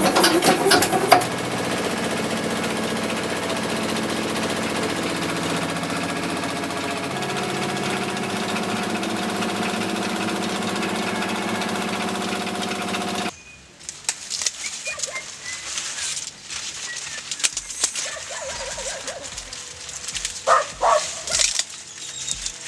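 Corn mill grinding boiled corn into masa: a coarse grinding noise for about a second, then a steady hum that shifts in tone about halfway and cuts off abruptly. After that, quieter rustling of leaves and a few brief handling sounds.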